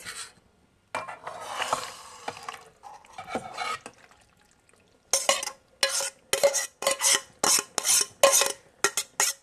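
Utensil scraping and knocking inside a metal camp pot as creamy pasta is emptied into a shallow pan: handling and softer scraping at first, then from about five seconds in quick scraping strokes about two a second with a light metallic ring.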